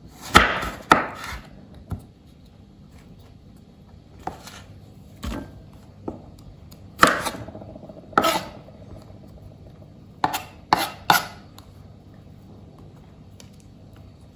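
Chef's knife slicing small Asian eggplants into rounds on a wooden cutting board: about a dozen separate knife strikes on the board, irregularly spaced with pauses between, and a quick run of three near the end.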